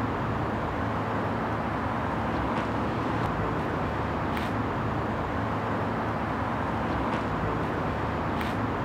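Steady outdoor ambience of distant road traffic: an even hum of cars, with a few faint short high-pitched sounds.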